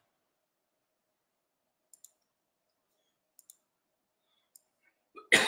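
Faint computer mouse clicks, two quick double-clicks and a single click, as a spreadsheet is zoomed on a laptop. A short, louder voice sound comes near the end.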